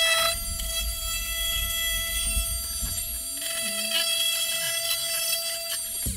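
Metabo oscillating multi-tool with a round segment saw blade cutting a slot in PVC pipe, running with a steady high whine. It stops just before the end.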